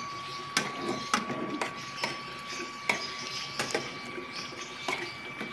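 Plastic spatula stirring sauce-coated fried chicken pieces in a wok, knocking and scraping against the pan in irregular clicks about once or twice a second. A faint steady high hum runs underneath.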